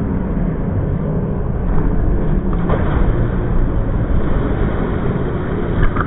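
Muffled rumble of pool water sloshing and splashing around an action camera at the water's surface.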